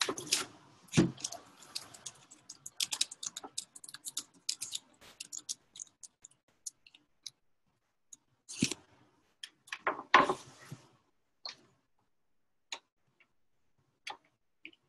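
Clicking and tapping at a computer: a quick run of short keyboard and mouse clicks, dense for the first few seconds and then sparser, with louder knocks about a second in and twice more later on.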